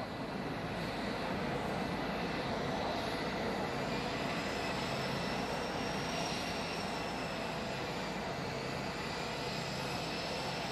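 Steady jet turbine noise from the parked aircraft: an even rushing sound with high whines that slowly waver in pitch.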